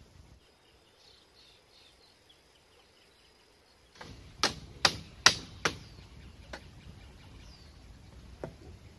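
A machete strikes bamboo four times in quick succession, sharp cracks about 0.4 s apart, followed by two lighter knocks.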